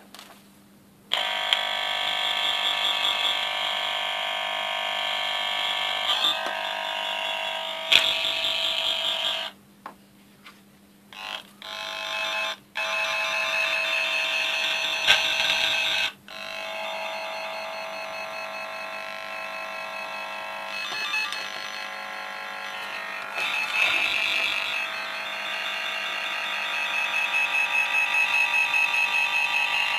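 Cable tracer probe buzzing as its tip is moved over the cores of a multicore cable, picking up the signal that the tone generator sends down a wire. The buzz cuts out about a second in and again for a few seconds around ten seconds in. Near the end it pulses about four times a second.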